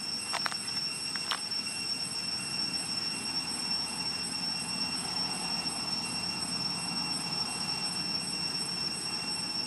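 Steady outdoor background: a constant high-pitched whine over a low, even rumble, with two short sharp chirps about half a second and a second and a half in.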